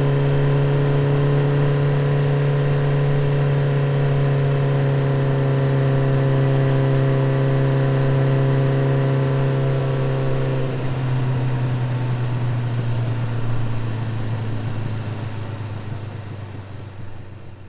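Motorcycle engine running at steady, held revs. About eleven seconds in its pitch drops a little, and it fades out toward the end.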